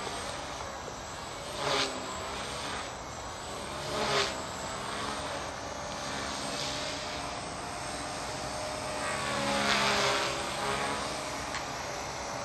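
Small radio-controlled model aircraft flying overhead: a steady motor whine that swells and bends in pitch each time it passes close, three times, the longest swell about three quarters of the way in.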